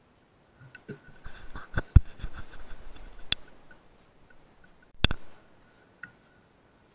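Scattered sharp clicks and knocks, the loudest about two seconds in, then a sharp double click about five seconds in, over a faint steady high-pitched whine.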